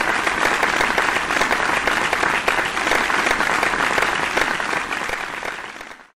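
Audience applauding, a dense steady clatter of many hands that fades out over the last second.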